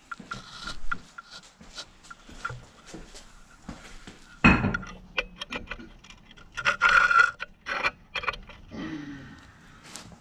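Clinks, knocks and scraping of metal engine parts and tools being handled, with one loud knock about four and a half seconds in and a quick run of clinks a couple of seconds later.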